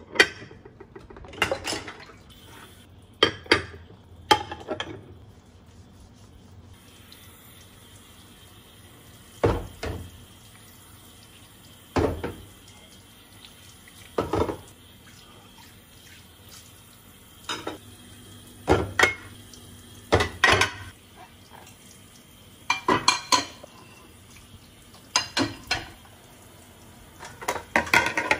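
Ceramic plates and cutlery clinking and knocking against each other as dishes are washed by hand in a sink, over a tap running. The clinks come singly or in short clusters every few seconds.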